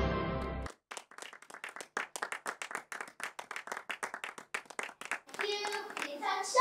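Hand clapping from a small audience, coming in just as the backing music fades and cuts off under a second in. A child's voice speaks over the last second or so.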